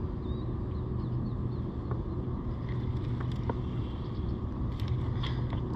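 Steady rush of river water flowing past, with a bird's short high chirp near the start and a few faint ticks near the end.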